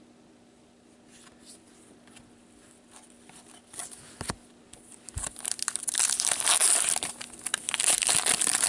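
A hockey card pack wrapper torn open and crinkled by gloved hands, starting about halfway through. It is loud and crackly next to a few faint clicks of cards being handled before it.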